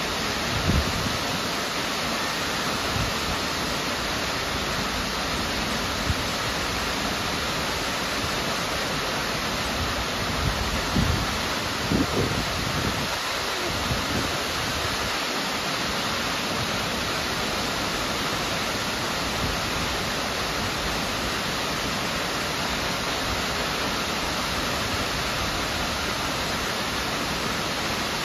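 Miners Falls, a waterfall plunging down a sandstone cliff into a rocky pool, rushing with a steady, even sound of falling water. A few brief low thumps come about a second in and again around the middle.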